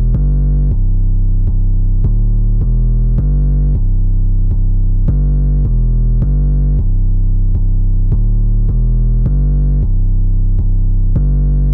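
Electronic background music: a bass-heavy synthesizer line pulsing in even beats, about one and a half a second.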